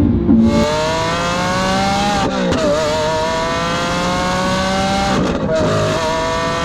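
Lamborghini Aventador S's 6.5-litre V12 with a straight-through Capristo exhaust accelerating hard, its pitch climbing through three pulls with two brief breaks between them at the gear changes of its single-clutch gearbox.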